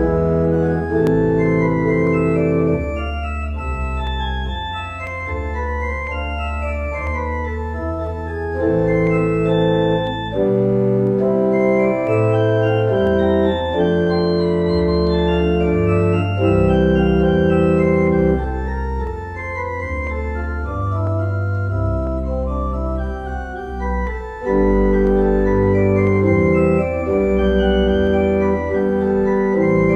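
Organ music: slow, sustained chords over deep bass notes, the harmony changing every second or two.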